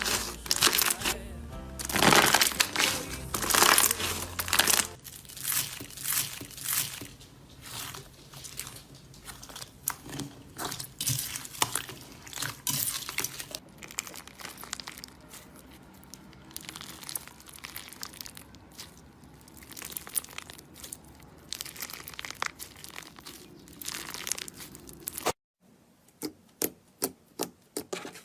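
Slime being squeezed and poked by hand, giving dense, irregular crackling and popping clicks over background music. The sound breaks off briefly near the end, and a few separate pops follow.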